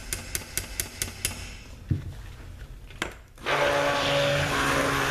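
A quick run of light taps, then a knock, and about three and a half seconds in a handheld stick blender starts and runs steadily, blending goat milk into hot-process soap batter in a Crock-Pot.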